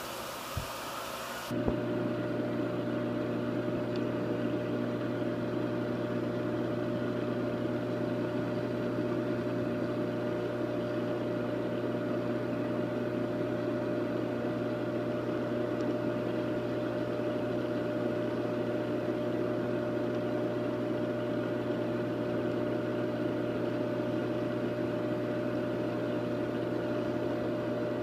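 Reef aquarium equipment humming steadily, with low and middle steady tones over a hiss. It comes on with a click about a second and a half in.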